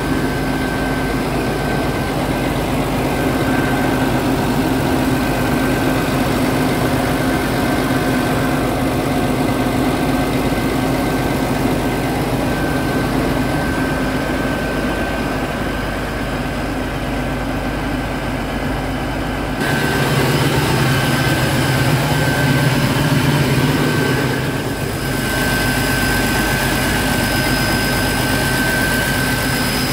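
Scania R truck's diesel engine idling steadily, with a change in tone about two-thirds of the way through.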